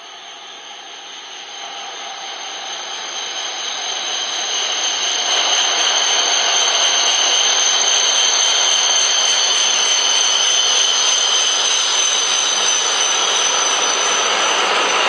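H5 series Shinkansen trainset running into a station: a rushing noise grows louder over the first five seconds or so, then holds steady as the cars slide past, with a steady high whine on top.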